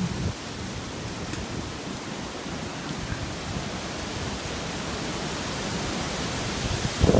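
Steady hiss of hurricane rain and wind, with a low thump near the end.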